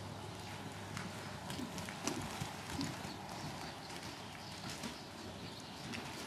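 A horse cantering on the dirt footing of an arena: faint, irregular hoofbeat thuds over a low steady hum.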